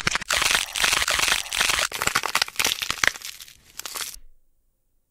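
Loud, dense crackling and crunching, many sharp cracks in quick succession, dying away and cutting off abruptly about four seconds in.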